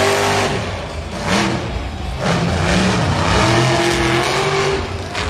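Monster truck's supercharged V8 engine revving hard on a freestyle run, its pitch climbing and dropping several times as the throttle is worked.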